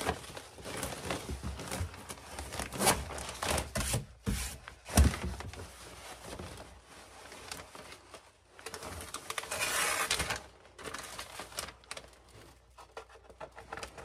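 A large sheet of stiff paper crinkling and rustling as it is folded and pressed into a wooden cabinet, with a few sharp knocks. The loudest knock comes about five seconds in, and a longer burst of rustling comes around ten seconds in.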